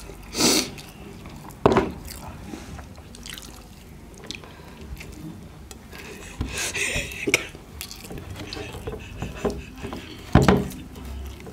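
Close-up eating sounds: wet clicks and smacks of chewing, and fingers squishing and mixing rice on a steel plate. A few short, sharper smacks stand out about two seconds in, around seven seconds and about ten seconds in.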